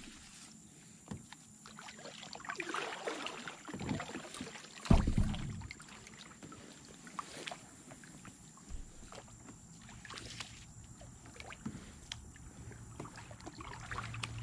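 Kayak paddles dipping and splashing in calm water, with drips between strokes and a heavier knock or splash about five seconds in.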